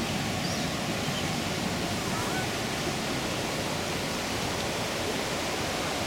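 Steady rush of white-water rapids in the Niagara River, the arm flowing toward Bridal Veil Falls, pouring over a low rocky ledge.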